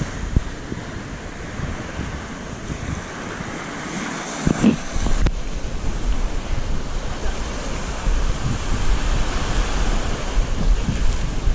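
Small waves washing onto a sandy beach, with wind buffeting the microphone in a low rumble that grows stronger about halfway through.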